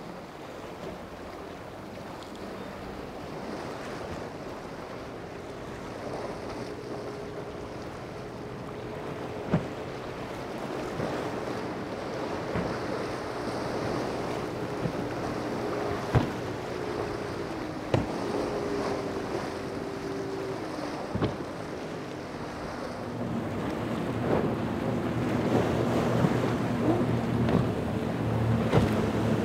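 Powerboat engines running as boats cross rough waves, with surf and wind buffeting the microphone. One engine hum holds steady for a while and fades, then a lower hum comes in and grows louder near the end, with a few sharp thumps along the way.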